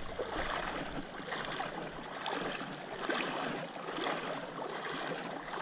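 Shallow creek water running over stones: a steady watery hiss with small scattered splashes.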